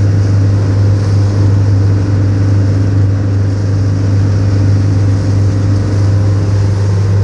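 Boat engine running steadily, a loud low drone with a constant hum and no change in speed.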